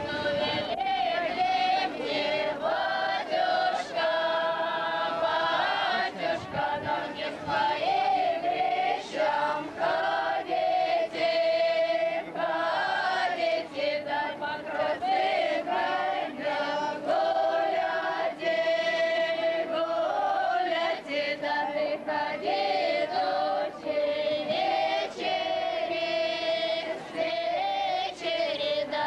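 A group of voices, mostly women's, singing a folk song together in a single melody line, phrase after phrase with short breaks between.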